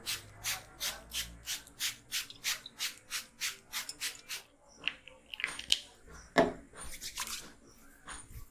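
Hands massaging a scalp with quick, even rubbing strokes, about three a second, which stop about four and a half seconds in. Then come irregular rustling and handling sounds, with one sharp, loud hit about six and a half seconds in.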